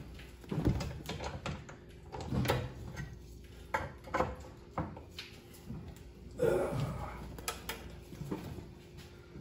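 Irregular metal clanks and knocks of hand tools working on a control arm, as a just-freed control-arm nut is worked off, with about ten separate knocks spread through.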